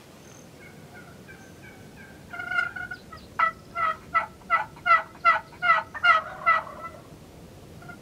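Wild turkey calling: faint soft notes, then a short rattling call a little over two seconds in, followed by a run of about nine loud, evenly spaced yelps, roughly three a second.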